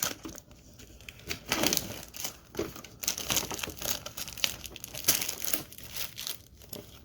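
Plastic shrink-wrap being torn open and crumpled off a Pokémon collector's tin: irregular crinkling and crackling of the film, with a few sharper tearing bursts.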